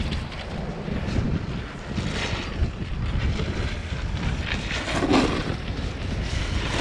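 Wind buffeting the microphone of a camera riding an open chairlift: a steady, gusty rumble, with a brief louder swell about five seconds in.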